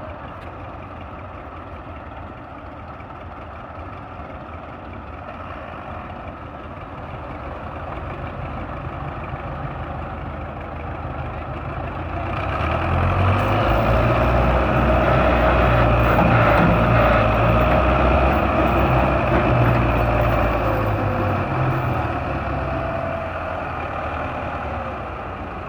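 Tractor diesel engine running, then working hard under heavy load from about halfway through as it pulls on a tow chain to drag a crashed tractor out of a canal. It eases off again a few seconds before the end.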